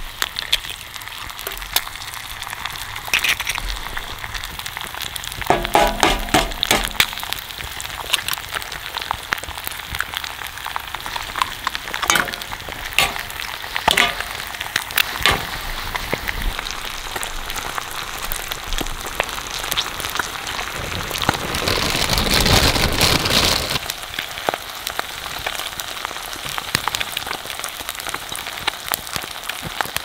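Thick-cut bacon and eggs sizzling in an iron frying pan over a campfire: a steady hiss dotted with sharp pops and crackles, swelling louder for a couple of seconds past the middle.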